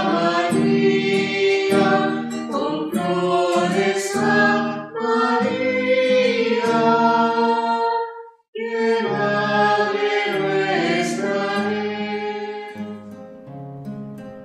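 Background music: a choir singing a hymn, with a brief break about eight seconds in and the singing fading toward the end.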